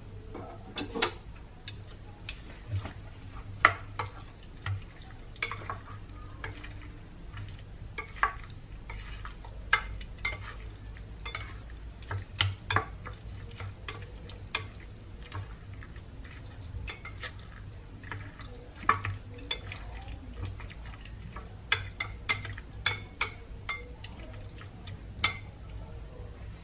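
A utensil stirring raw buffalo meat with garlic and seasoning in a ceramic bowl, mixing in the marinade: irregular sharp clicks and taps against the bowl, over a steady low hum.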